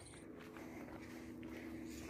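Quiet background with a faint, steady low hum and no distinct events.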